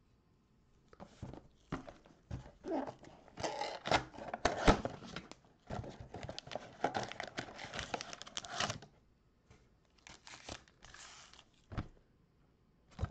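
Cardboard of a 2021 Panini Prestige football Mega Box being torn open by hand, in irregular tearing and rustling bursts that are loudest about four seconds in, with a few softer rustles and clicks near the end.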